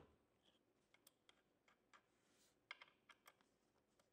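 Faint, irregular clicks and light metallic taps of a stainless steel tape guide plate and a hex key being handled at a hot air welder's roller guides, with a cluster of several clicks about three seconds in.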